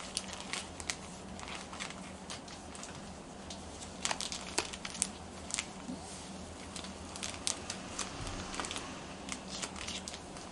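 Hakkake lining fabrics being handled and laid out: irregular rustling and crinkling with scattered sharp clicks.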